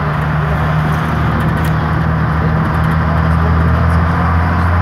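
Bus engine running steadily under way, a low drone with road noise, heard from inside the bus; it grows a little louder near the end.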